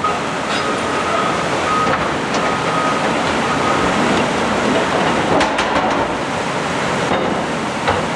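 Steady rushing of a swollen river blended with distant heavy machinery working, with a thin, high, on-and-off tone during the first three seconds or so and a few sharp clicks about five and a half seconds in.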